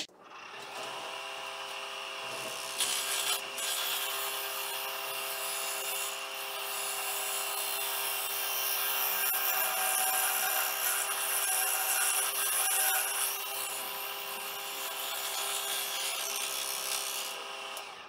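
Wood lathe running while a negative-rake scraper cuts the outside of a spinning Itín wood bowl blank: a steady motor hum under a continuous rasping scrape, cutting off near the end.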